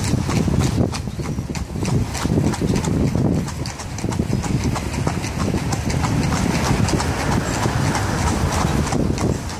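Horse's hooves clip-clopping on the street as it pulls an open carriage, a quick run of sharp strikes over a steady low rumble.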